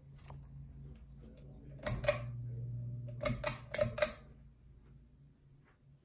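Hampton Bay San Marino ceiling fan's motor humming as the fan starts up. Two sharp clicks come about two seconds in, then a louder hum for about a second, then four more clicks in quick succession.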